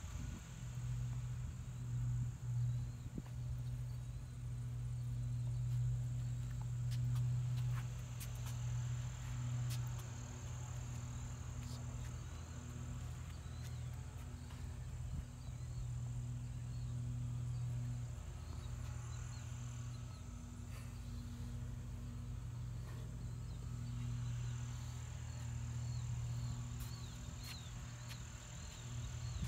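Steady low hum of the 1965 Pontiac GTO's 389 V8 idling, with crickets chirping: a thin high trill throughout and short repeated chirps, most noticeable near the end.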